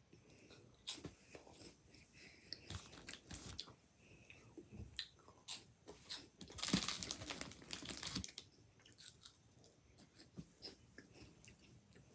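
A child crunching and chewing a crunchy snack in irregular bites, with a louder stretch of crackling about seven seconds in.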